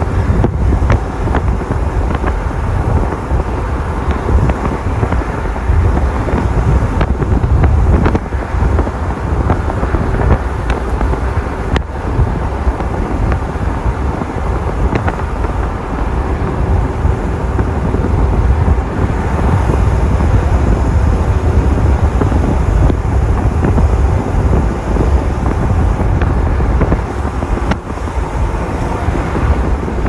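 Loud, steady low rumble of outdoor noise, with a few faint clicks.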